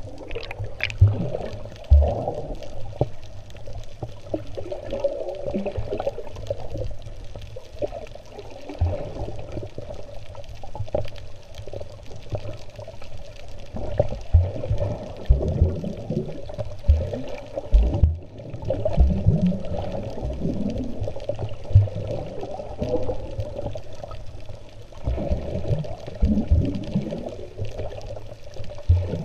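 Muffled sea-swimming water noise heard underwater: splashing and bubbling from front-crawl strokes and kicks, with irregular low thuds as arms and legs strike the water.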